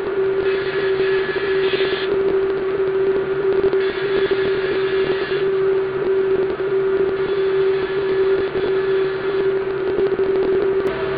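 Table saw and dust collector running with a steady hum. The saw's 24-tooth framing blade rips western red cedar strips fed by a power stock feeder, giving a louder hiss of cutting from about half a second to two seconds in and again from about four to five and a half seconds in.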